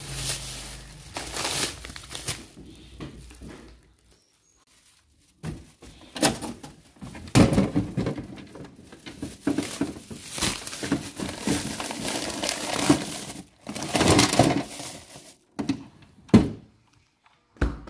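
Thin plastic grocery bags and frozen-food packets crinkling and rustling in irregular bursts as they are handled and unpacked, with a couple of sharp knocks near the end from the freezer drawer.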